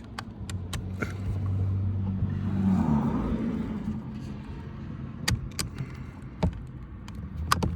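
Sharp plastic clicks and handling noise as the door-panel wiring connectors are unlatched and pulled free, over a steady low hum.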